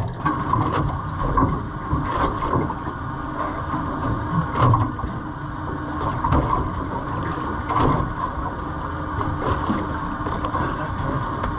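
Steady boat noise at sea: a low motor hum with wind on the microphone, broken by a few brief knocks.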